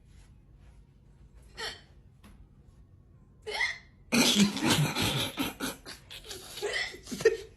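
Abnormal hiccups, strange enough to be taken for a wild animal: two single hiccups a couple of seconds apart, then a loud, rapid run of them for about three seconds.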